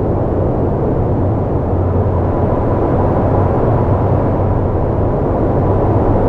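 Steady low rumbling noise, strongest in the deep bass, with a faint thin tone above it.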